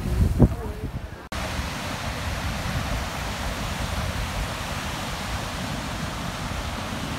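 Surf breaking and washing up on a sandy beach, a steady even rush of waves mixed with wind. It begins abruptly about a second in, after a moment of gusty wind noise on the microphone.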